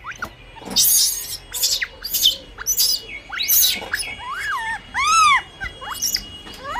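Young rhesus macaque calling: a quick run of short harsh screeches, then several short arched coo calls that rise and fall in pitch near the end.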